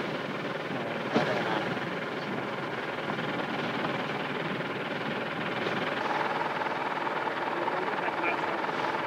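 Tractor engine running steadily, with a single knock about a second in.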